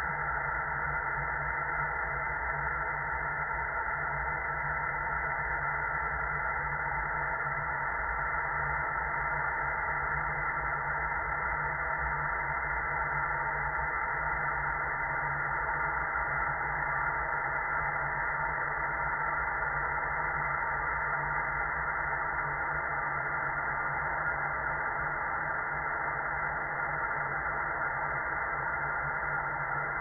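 Steady, unchanging white-noise hiss from an experimental noise track. Everything above about 2 kHz is cut off, and a low hum and rumble sit underneath.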